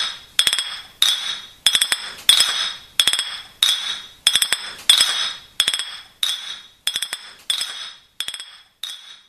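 Cutlery clinking repeatedly against a cup, about one and a half strikes a second. Each strike rings briefly with a high tone, and the strikes grow fainter near the end.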